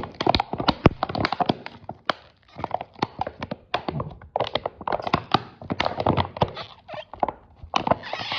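Plastic bottle being handled, making irregular clusters of sharp crackles and clicks separated by brief pauses.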